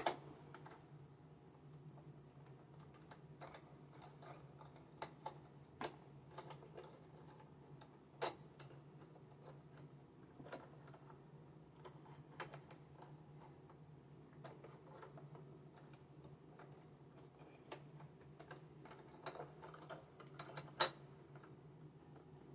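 Scattered light clicks and taps of a part being handled and worked into place in a PE570 embroidery machine, irregular and a few seconds apart, with one sharper click about 21 seconds in, over a faint steady low hum.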